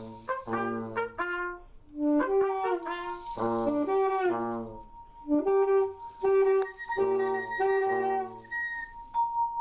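A small live ensemble playing a run of short held notes, low and higher pitches overlapping with brief gaps between them, with a steady high tone sustained underneath throughout.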